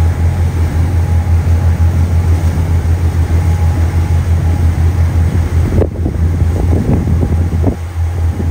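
Low, steady drone of a ferry's engines heard on deck, with wind blowing across the microphone; from about six seconds in, gusts buffet the microphone in short rough bursts.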